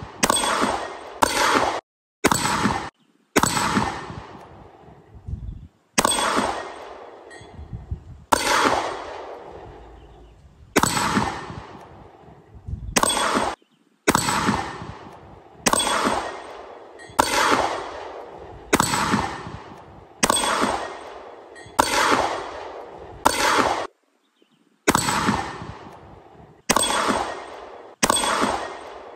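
Taurus TX22 Competition .22 LR pistol firing single shots, one every one to two seconds, each sharp crack ringing out briefly, with the sound cutting off suddenly at several edits.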